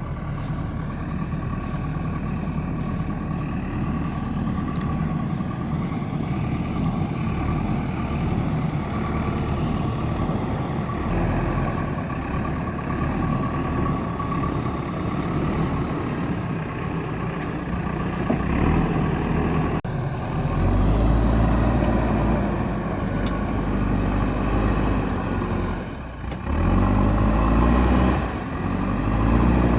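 JCB backhoe loader's diesel engine running steadily while it works. About two-thirds of the way in it gets louder and the engine pitch rises and falls as it revs under load, with two abrupt breaks.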